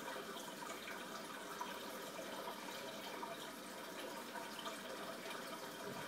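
Aquarium water trickling steadily, with small drips and ticks scattered through it.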